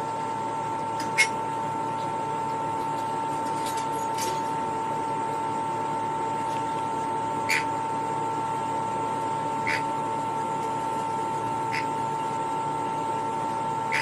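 Steady mechanical hum with a constant mid-pitched tone over a low hiss, broken by a handful of faint short clicks.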